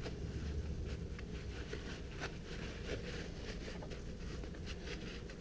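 Faint hand-work noises: scattered small clicks and rustles from handling small parts and tools, over a steady low hum.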